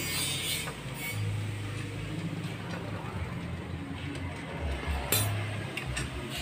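A metal hand tool clinks and scrapes against a scooter's CVT cover as the cover is being taken off, over a low steady hum. The sharpest clink comes about five seconds in, followed by a few lighter ones.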